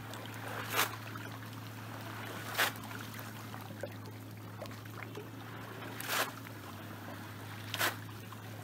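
Water splashing in four short bursts at uneven intervals around a small boat, over a steady low hum.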